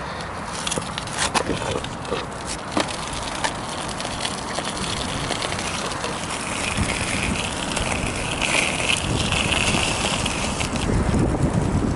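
Ride noise from an electric unicycle in motion: steady rushing and tyre noise, with scattered sharp clicks and knocks in the first few seconds. A brighter hiss joins from about the middle until near the end.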